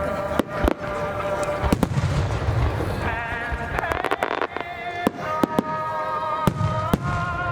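Fireworks shells bursting in a string of sharp bangs at irregular intervals, a quick cluster of them near the middle, over music with long held notes.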